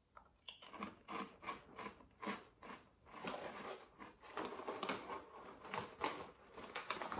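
Someone biting and chewing a Cofresh chilli and lemon grill crisp, a ridged crisp shaped like an armadillo shell, in a series of sharp crunches about two to three a second.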